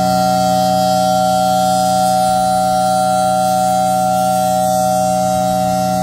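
Federal Thunderbolt 1000T outdoor warning siren sounding its steady alert signal at full speed, one held pitch with no rise or fall. The rotating horn makes the level swell slightly and then ease off as it turns.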